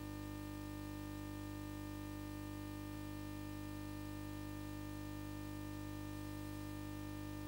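A steady, unchanging hum made of several fixed tones, with one faint click about three seconds in.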